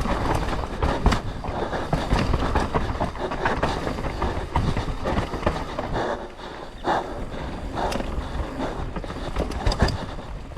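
Mountain bike descending a rough trail at speed: tyres rolling over dirt and rock with continual clattering and rattling knocks from the bike, and wind on the microphone.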